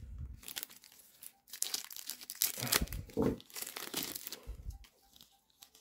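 Wrapper of a trading-card booster pack being torn open and crinkled by gloved hands, a run of irregular crackles and rips.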